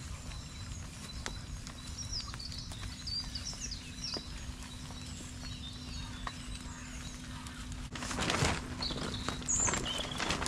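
Steady low outdoor noise with scattered small bird chirps. About eight seconds in comes loud rustling and scraping as a nylon dome tent is taken down, its pole pulled and the fabric handled.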